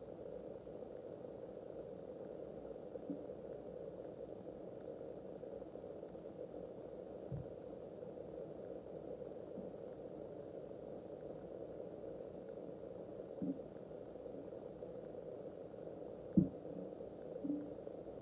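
Steady low hum of room noise with a few soft knocks, the loudest a single sharp knock about sixteen seconds in.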